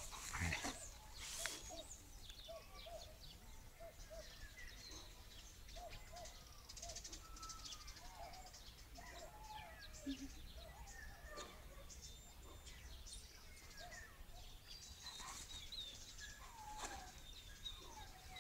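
Faint animal calls outdoors: many short chirps and whistled glides that rise and fall, scattered all through, with a few brief rustles near the start.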